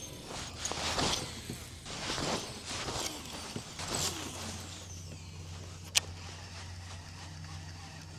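Rod and reel handling in a kayak: uneven mechanical whirring and knocks in the first half, a single sharp click about six seconds in, then a steady low hum.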